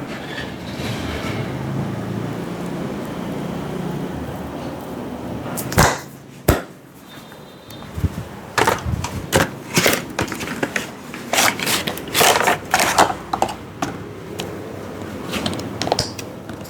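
Hands slapping and chopping on a head in an Indian head massage: two sharp slaps about six seconds in, then a fast run of strikes, several a second, for most of the rest.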